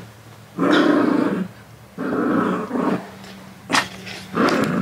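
A small dog growling in short bursts, each about a second long, twice in the first three seconds, with shorter sounds near the end.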